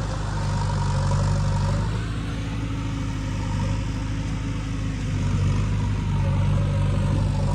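Diesel tractor engine running at a steady, low, even speed.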